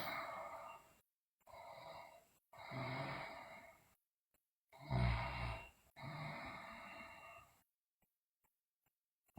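A sleeping girl breathing heavily in a series of long breaths, each under a second, with silent gaps between. The breath about five seconds in carries a low snoring rasp.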